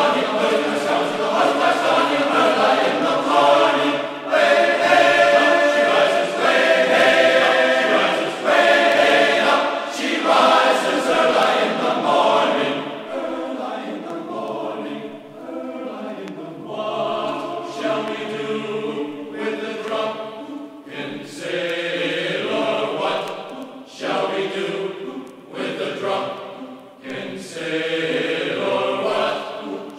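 Choral music: voices singing long, held chant-like notes.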